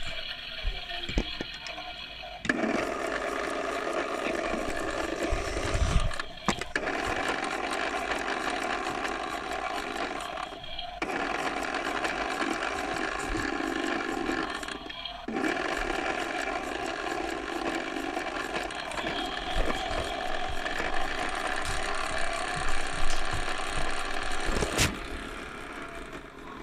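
Toy washing machine running, a steady whir from its small motor turning the drum. The whir cuts out briefly three times, and a sharp click comes shortly before the end.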